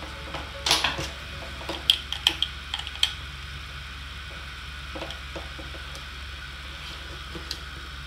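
Hands handling a USB-C cable and a drone remote controller on a table: a few short clicks and light knocks in the first three seconds and softer ones around five seconds, over a steady low hum.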